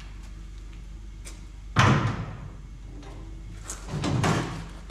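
Metal clanks from the winch and auger extension of a New Holland 355 feed grinder being worked by hand. There is a single sharp clank about two seconds in, and a longer clatter near the end.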